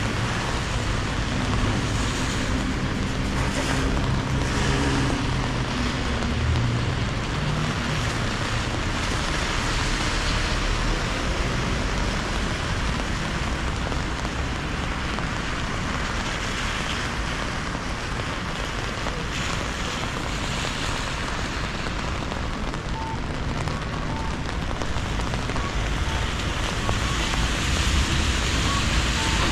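Traffic on a wet city street in steady rain: tyres hiss on the soaked road as cars pass through the intersection. An engine rumbles by in the first few seconds.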